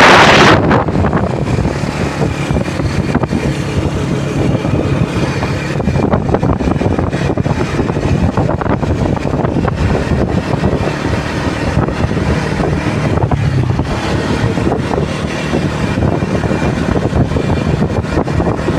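Steady low rumble under loud, irregular wind buffeting on the microphone.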